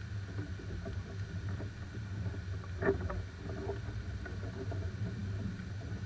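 A herd of wild boars with piglets feeding in a wet clearing: scattered faint snuffles, grunts and rooting sounds over a steady low wind rumble on the microphone, with one louder short sound about three seconds in.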